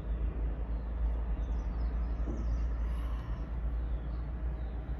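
Outdoor ambience: a steady low rumble with a faint hiss above it, and a few faint, high bird chirps now and then.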